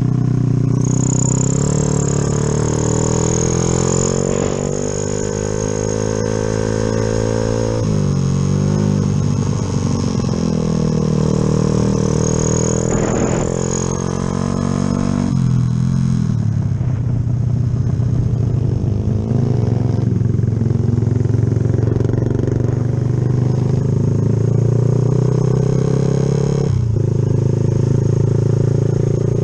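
Yamaha Jupiter MX motorcycle's single-cylinder four-stroke engine, bored up with a 72 piston, running under load on a ride. The revs climb steadily, drop sharply about a third of the way in and again near the middle, then rise and fall more gently.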